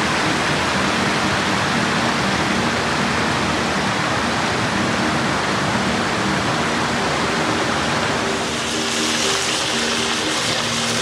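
Shallow river water rushing over flat rock in a steady hiss, with soft sustained background music underneath.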